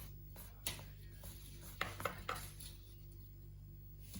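Knife cutting rolled baklava in a baking tray, the blade clicking sharply against the tray about five times in the first two and a half seconds, over a steady low hum.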